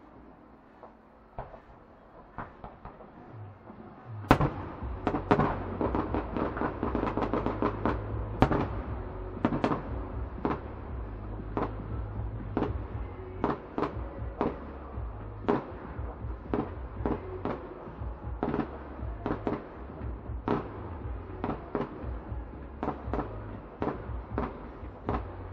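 Fireworks display: a few faint pops, then about four seconds in a loud burst sets off a dense run of rapid bangs and crackle, followed by sharp aerial shell reports coming about one or two a second over a low rumble.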